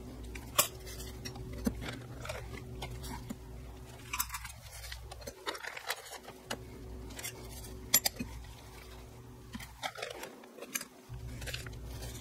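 Oil-soaked Barnett clutch friction plates and steels being stacked by hand onto a motorcycle clutch hub: scattered light metallic clinks and clicks, with a plastic bag crinkling as plates are pulled from their oil bath.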